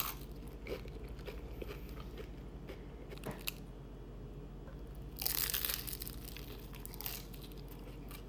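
Close-up chewing of a crispy fried crab rangoon egg roll: scattered small crunches, with a louder stretch of crunching about five seconds in.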